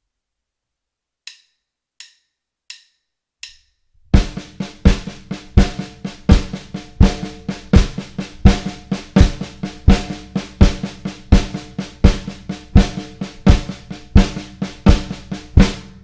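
Four drumstick clicks counting in, then a drum kit played steadily: a bass drum on every quarter note with alternating hand triplets between, the downbeats accented, stopping about a second before the end and ringing out.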